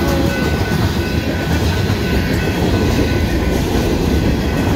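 Freight train cars rolling past close by: a steady, loud rumble and rattle of steel wheels on the rails.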